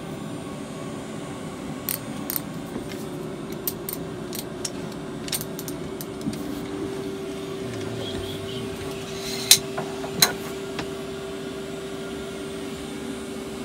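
Scattered light metallic clicks and taps from handling a long-handled metal tool, over a steady low hum. Two sharper clicks come close together about two-thirds of the way through.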